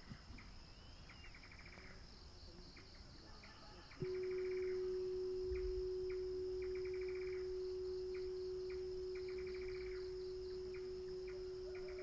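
A meditation bell is struck once about four seconds in, its single low tone ringing on and slowly fading. Under it, crickets chirr steadily with short repeated chirps.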